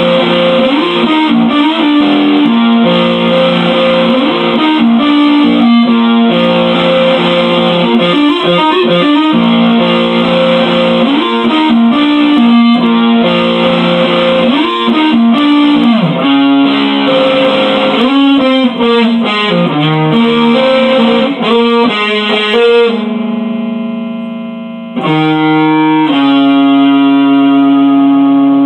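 Electric guitar played through effects, an improvised instrumental of held notes and string bends. About 23 seconds in a chord rings and fades, then a new chord is struck about two seconds later.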